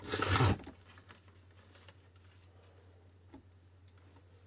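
A short noisy burst, then quiet with a steady low hum and a few faint clicks as multimeter test probes are pressed onto the e-bike battery's output terminals.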